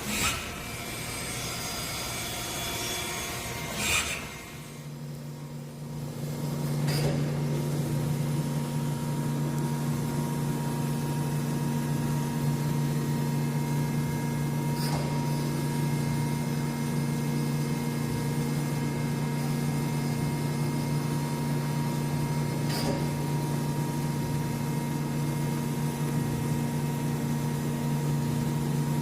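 A grinding machine starts up about four seconds in, comes up to speed over two or three seconds, then runs with a steady hum. A faint click comes about every eight seconds.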